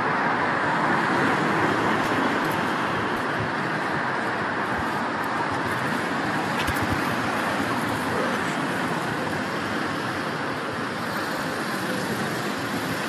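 Steady city street traffic noise, an even wash of passing cars with no single vehicle standing out.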